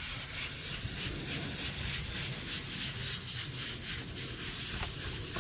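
A 220-grit sanding sponge rubbed by hand in repeated back-and-forth strokes over a painted cabinet door, a steady scratchy rubbing: scuff-sanding to prepare the door for the next coat of paint.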